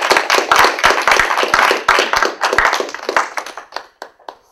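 A small audience applauding, the separate hand claps dense at first, then thinning to a few last claps before stopping near the end.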